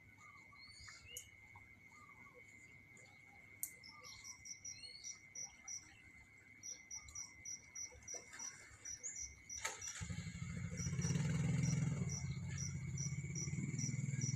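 Shoreline evening chorus: a steady high insect trill with scattered bird chirps, and from a few seconds in a regular run of short high chirps at about three a second. About two-thirds of the way through, a low rumble comes in and becomes the loudest sound.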